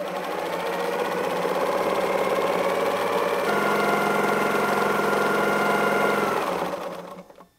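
Pfaff sewing machine stitching at speed while free-motion quilting, the needle running a fast, even rhythm. It speeds up about halfway through, then slows and stops near the end.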